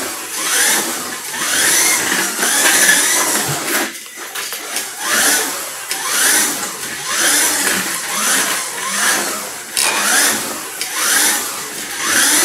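Kyosho Mini-Z radio-controlled car's small electric motor and gears whining as it laps a tight track, the pitch rising over and over as it speeds up and dropping as it slows for corners. The whine briefly drops off about four seconds in.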